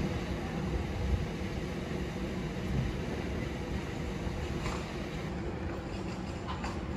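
City street ambience: a steady low rumble of passing vehicles, with a few faint clicks near the end.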